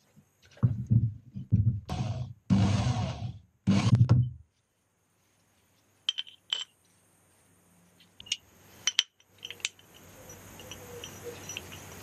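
Loud, broken bursts of sound for the first four seconds or so, then light metallic clinks and taps as the aluminium rearset bracket and rearset parts are handled and fitted together.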